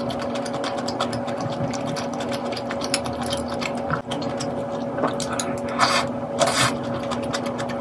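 A person slurping pork-bone soup, two short loud slurps about six seconds in. Under it runs a steady hum with fast faint ticking.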